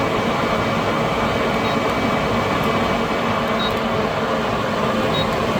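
Unbranded 12-volt rooftop RV air conditioner running steadily in eco mode, an even whir of fan and airflow with a faint hum.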